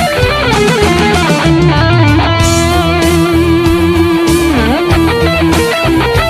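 Charvel electric guitar through a Zoom G5n multi-effects unit's Xtasy amp model, playing a lead solo over a rock backing track with bass and drums. A run of notes leads into a long held note with vibrato, which then dips in pitch and comes back up about four and a half seconds in.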